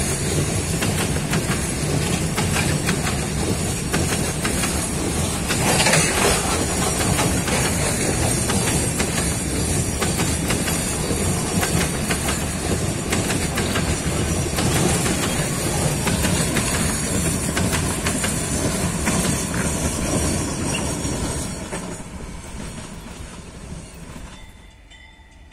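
Loaded freight wagons rolling past at speed: a loud, steady rush and rumble of steel wheels on the rails. It fades away over the last few seconds as the end of the train goes by.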